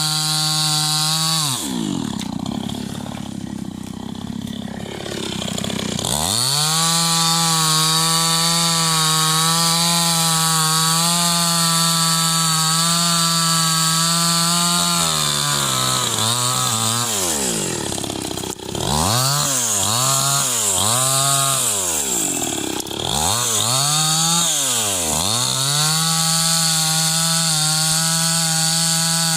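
Chainsaw engine running at high revs. A couple of seconds in it drops off toward idle and revs back up about six seconds in. Between about 15 and 25 seconds it is revved up and down several times, then held high again.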